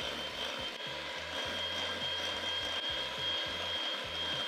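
Electric hand mixer running at a steady speed with a constant high-pitched motor whine, its beaters whisking a runny egg, sugar and banana batter in a glass bowl.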